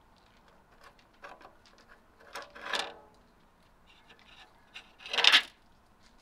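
Shallow aluminium foil food tray scraping and clattering against a wooden step as two cats eat from it and push it about, with small clicks and two louder scrapes about two and a half and five seconds in.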